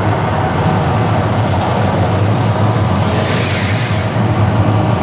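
The Mirage volcano show's loud, steady low rumble with rushing noise over it, and a brief hiss about three seconds in.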